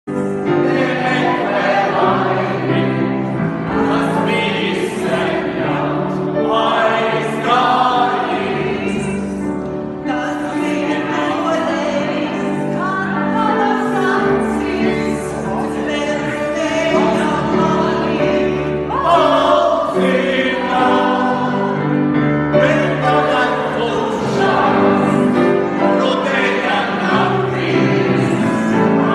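Music: a choir singing in held chords that change every second or two.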